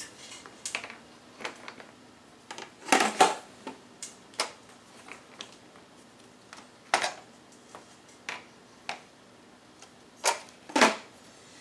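Lid of an electric pressure cooker clacking and clicking against the pot as it is handled and set in place, a series of short sharp knocks, the loudest about three seconds in and near the end.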